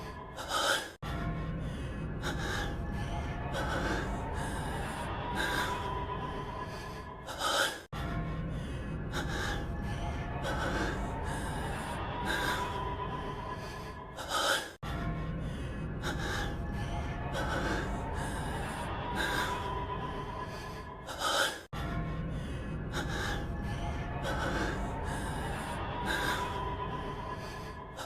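A man's heavy breathing in sharp, panting gasps, about one every one and a half to two seconds. The same few-second clip loops about every seven seconds, with a brief dropout between repeats, over a faint musical background with a steady high tone.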